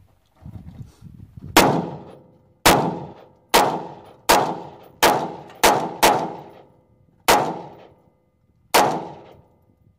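Nine gunshots fired one at a time at uneven intervals, each followed by a ringing echo that dies away over about a second.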